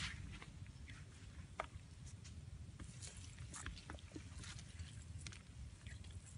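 Faint rustling and small scattered clicks of a nylon cast net being handled as fish are picked out of its mesh by hand, over a steady low rumble.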